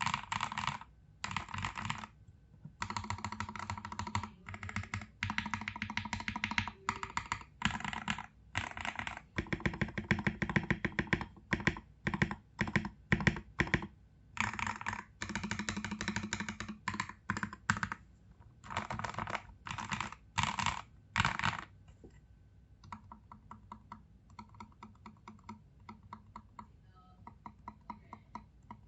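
Typing on a tape- and foam-modded RK68 mechanical keyboard fitted with lubed Akko CS Rose Red linear switches and XDA-profile keycaps: fast bursts of keystrokes broken by short pauses. About two-thirds of the way through, the typing turns to softer, evenly paced single keystrokes.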